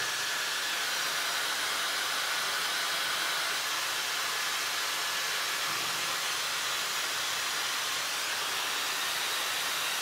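Dyson Supersonic hair dryer running on its second of three airflow settings: a steady rush of blown air with a faint high whine.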